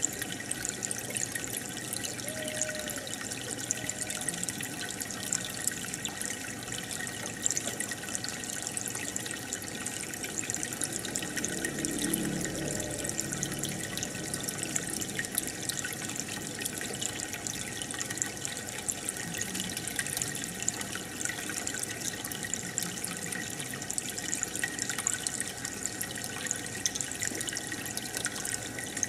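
Aquarium water bubbling and trickling steadily from the tank's aeration, a constant fizzing hiss with fine crackles of bursting bubbles.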